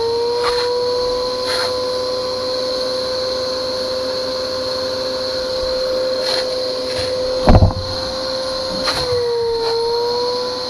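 Wet/dry shop vacuum running with a steady whine, its pitch shifting slightly now and then as the nozzle draws water out of a vehicle's floorboards. A few knocks come through over it, the loudest about seven and a half seconds in.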